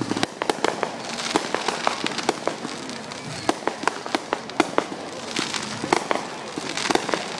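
Fireworks finale barrage: a rapid, irregular string of sharp bangs and pops over continuous crackling.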